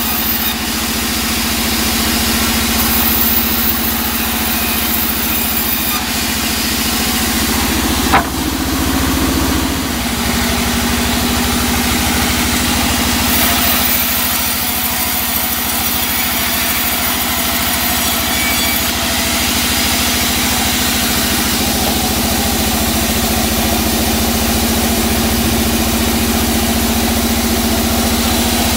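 Large band saw running steadily with a constant hum, its blade sawing through teak wood. There is one sharp knock about eight seconds in.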